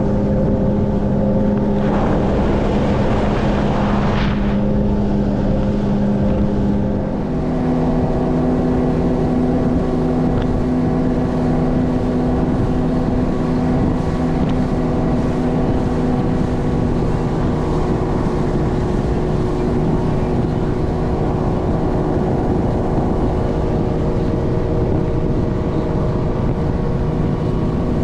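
Motorboat engine running steadily under way. About seven seconds in, its pitch steps up to a higher engine speed and holds there.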